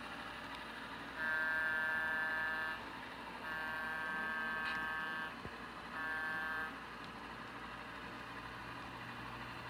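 Model diesel locomotive's sound-decoder horn sounding three blasts, two long and then one short, over a faint steady background noise.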